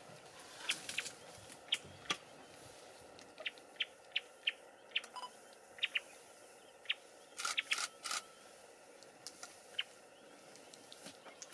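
Irregular sharp snaps and crackles of twigs and leaves as an African bush elephant moves and browses in dense bush at close range, with a quick flurry of snapping about two-thirds of the way through.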